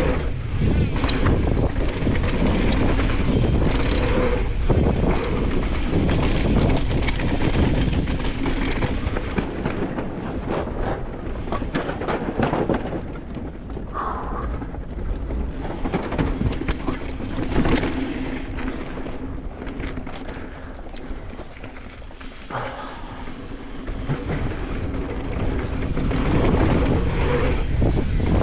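Mountain bike rolling fast down a dirt flow trail: tyres running over hard-packed dirt with rattles and knocks from the bike over bumps, and wind rumbling on the action camera's microphone. Quieter for a stretch in the middle.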